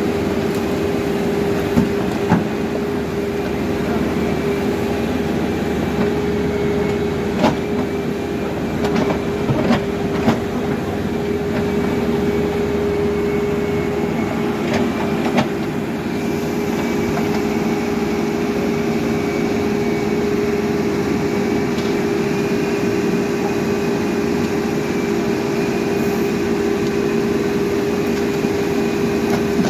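Caterpillar backhoe loader's diesel engine running at a steady speed, with a few sharp knocks in the first half.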